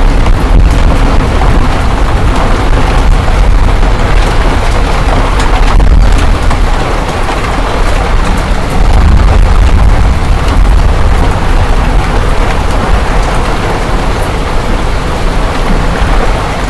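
Hailstorm: hail and heavy rain pelting down steadily as a loud dense clatter of small impacts, with a deep rumble underneath.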